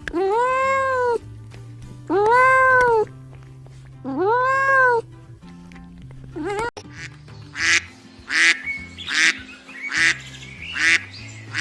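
A domestic cat meowing three times in long, drawn-out meows, then a run of short quacks, about one every 0.7 s, from ducks. Background music with steady low notes underneath.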